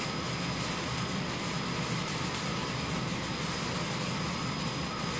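Commercial drum coffee roaster running with a steady whirring hum from its rotating drum and fans, its gas burner shut off while the batch coasts toward the drop.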